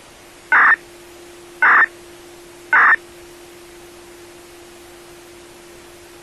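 Static hiss from a municipal disaster-prevention radio receiver that has just opened for a broadcast, with three short loud bursts about a second apart and a steady low hum starting under the first of them.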